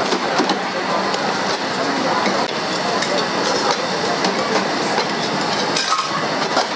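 Two metal ladles clinking and scraping against a shallow metal pan in quick, irregular strokes as saucy stir-fried sukiyaki is stirred over a gas burner, with a steady dense noise underneath.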